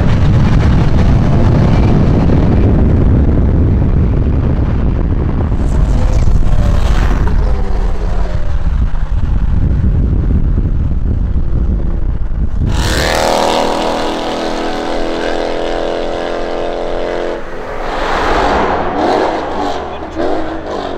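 Car engines and exhausts: a loud, deep rumble of cars driving for the first several seconds, then, about two-thirds of the way in, a single steady engine note held for several seconds, followed by mixed engine and traffic noise.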